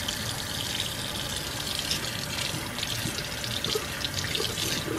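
Water running steadily from a sink faucet, splashing as a newborn's head is rinsed under the stream.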